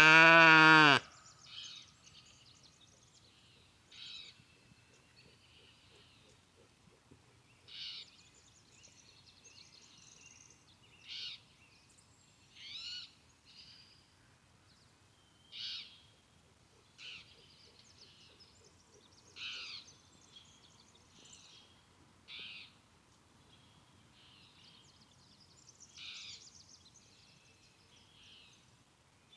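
A sheep bleats loudly once at the start, then birds give short, high-pitched calls every two to four seconds.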